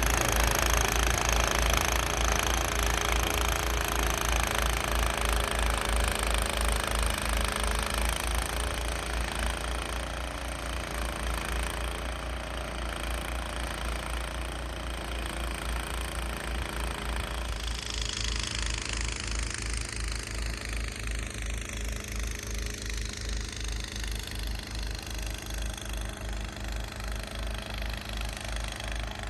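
Gas snow blower engine running steadily under load, with an even low pulsing and a hiss of snow being thrown; about two-thirds of the way through the high hiss falls away and the engine runs on more quietly.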